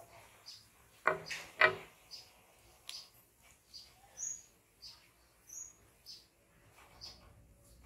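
A bird chirping over and over, short high chirps coming every half second to a second. Two louder, sharper sounds come about a second in.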